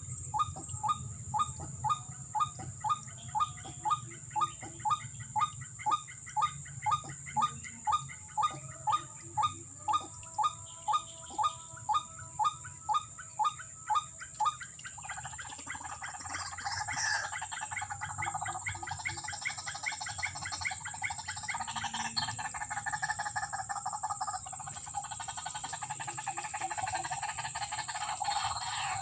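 Calling of the white-breasted waterhen (ruak-ruak): a croaking note repeated evenly about twice a second. About halfway through it gives way to a denser, rougher chattering chorus. A steady high insect drone runs underneath.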